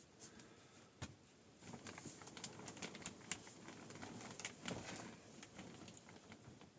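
Faint, irregular clicks and small taps: one sharper tap about a second in, then a dense, uneven run of small clicks for several seconds that thins out near the end.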